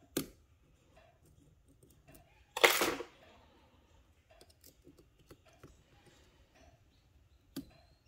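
Small ticks and clicks of a hook pick working the pin stacks of an Assa 700 lock cylinder held under tension. A sharp click comes just after the start and another near the end, and a louder brief noise of under half a second comes about two and a half seconds in.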